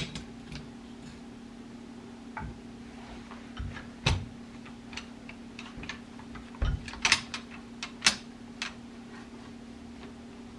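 Steel parts of an M1 Garand rifle being handled during field-stripping: scattered metallic clicks and light knocks, a sharp one at the very start and louder ones about 4, 7 and 8 seconds in.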